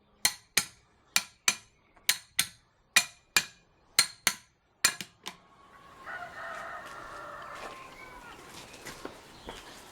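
Hammer striking metal in quick pairs, about a dozen sharp ringing blows over the first five seconds, then a rooster crowing once.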